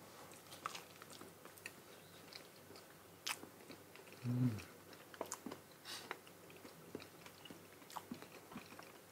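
Faint, close chewing and mouth clicks of people eating soft Monthong durian flesh. There is a brief hummed "mm" a little past four seconds in.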